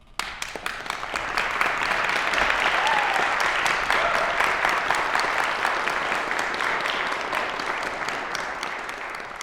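Audience applauding. It starts suddenly, swells to full within a second or two, and slowly thins toward the end.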